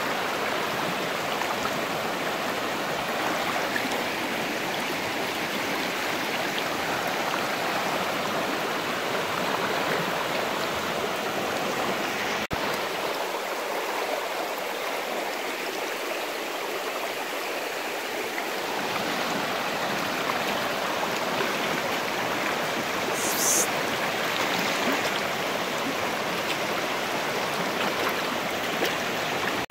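Shallow, fast river rushing and splashing over rocks, a steady dense rush of water. A brief high-pitched blip sounds about three quarters of the way through.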